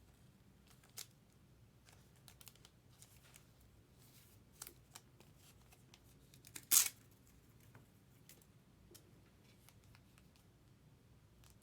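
Faint rustling and light clicks of trading cards and packaging being handled, with one louder, brief rustle about seven seconds in.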